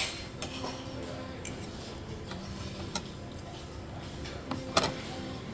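Restaurant table noise: a few sharp clicks and clinks of utensils and dishes, the loudest near the end, over faint background chatter.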